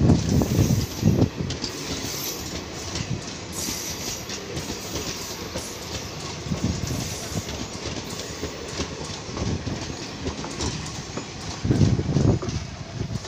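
ICF passenger coaches rolling past close by, their wheels clicking over the rail joints with a continuous rumble. Heavier low thumps come as bogies pass, loudest in the first second and again near the end.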